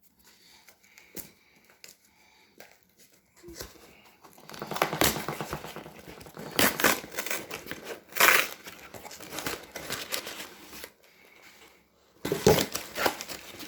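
Packing material crinkling and tearing as it is handled and pulled apart by hand to unwrap a parcel. A few faint taps at first, then several seconds of dense crinkling from about four seconds in, a short pause, and more crinkling near the end.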